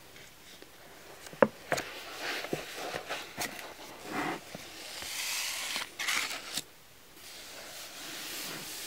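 Paperback book pages being leafed through and smoothed by hand: paper rustling with scattered soft taps, a sharp tap about a second and a half in, and a longer, louder rustle of a page turn around five to six and a half seconds in.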